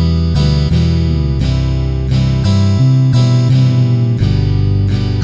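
Drumless backing track of a Thai pop-rock song: guitars strumming chords about twice a second over a bass line, with the drum part removed so that a drummer can play along.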